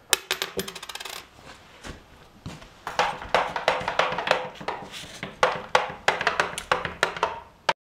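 Handling noise: a quick run of light clicks, then a string of sharp taps and clinks, about three or four a second, that stops just before the end.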